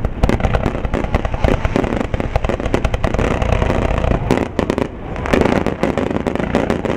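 Finale barrage of aerial firework shells bursting, a dense run of bangs and crackles with hardly a gap. There is a brief lull about five seconds in, after which the noise thickens again.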